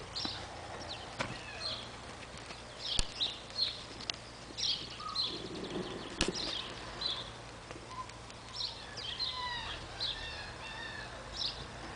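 Small birds chirping and twittering in short, high calls throughout, a busier run of chirps about nine to ten seconds in, with a few sharp taps as a puppy moves about on a trampoline mat.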